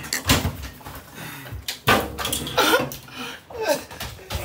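Kitchen cabinet and fridge doors knocking and banging shut a few times, with short wordless voice sounds in between.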